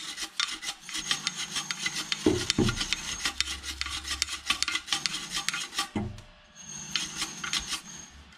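Stiff brush scrubbing the blades of an Ideal Logic boiler's fan inside its housing, in rapid scraping strokes, with a short pause about six seconds in. A thump about two seconds in.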